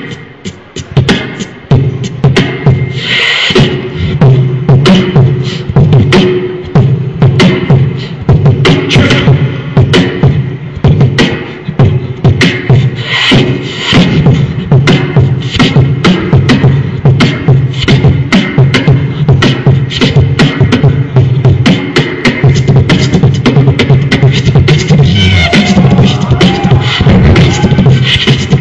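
Beatboxing: a fast, unbroken rhythm of mouth-made drum sounds, sharp clicks and snare-like hits over a steady low bass.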